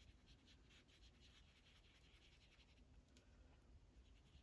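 Faint scratchy rubbing of a pan pastel sponge applicator on paper, with many small light ticks.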